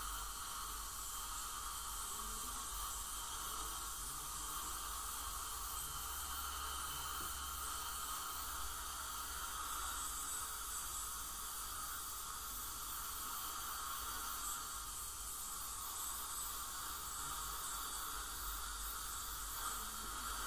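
Dental cleaning equipment running steadily during scaling: a continuous hiss with a faint high whine and a low rumble beneath.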